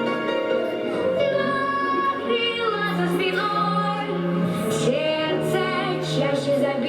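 Music: a woman's voice singing a melodic line over instrumental accompaniment, with a low sustained bass underneath.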